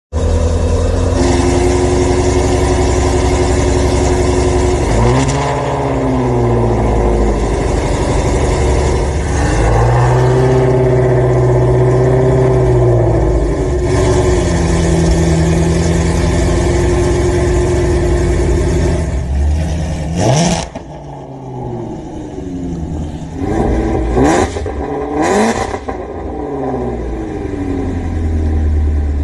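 Ford Mustang engine held at high revs for long stretches, its pitch dipping and climbing again, as in a burnout or donuts. About 20 s in it revs sharply up and drops away, then runs lower with two quick throttle blips near the end.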